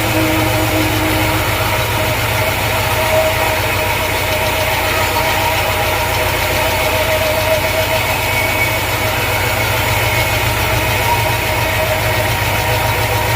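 An engine idling steadily: a constant low drone with a faint steady whine above it.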